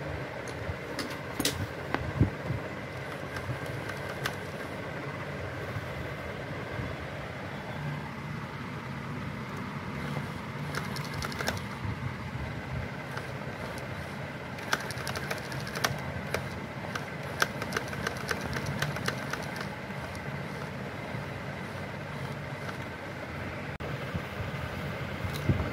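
Homemade servo's DC gear motor running through its metal gearbox, giving a steady hum with a faint whine, with scattered sharp clicks that come in clusters about halfway through.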